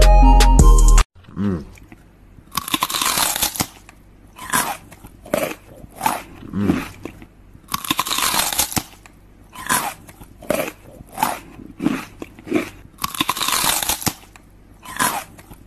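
Music that cuts off abruptly about a second in, then close-up crunching as someone bites and chews crunchy food. A bigger, longer crunch comes about every five seconds, with shorter chewing crunches in between.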